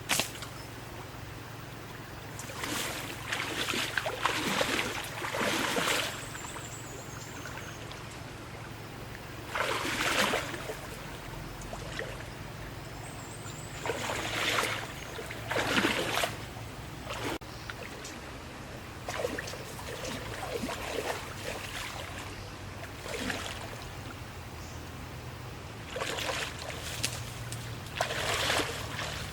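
Water splashing and trickling in short irregular bursts a few seconds apart, over a steady low hum.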